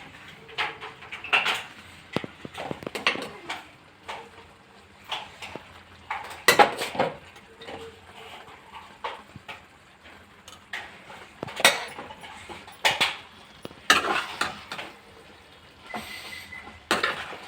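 A metal spoon scraping and clinking against a kadai while cooked rice is stirred into a tomato masala, in irregular strokes about once a second.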